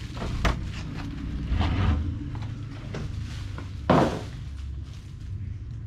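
A house door being handled and passed through: a series of clicks and knocks from the latch and door, with one louder clunk about four seconds in, over a steady low rumble.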